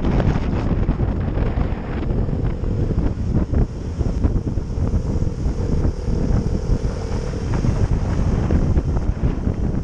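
Wind buffeting the microphone of a camera on a motorcycle riding at speed, a dense low rumble with rapid gusty flutter, with a faint steady hum for a few seconds in the middle.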